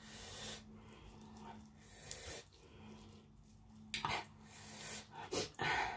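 Close-up eating sounds: chewing and smacking of a mouthful of lettuce-wrapped raw beef and rice noodles, with breaths, in short noisy bursts that come thicker near the end. A low steady hum lies beneath.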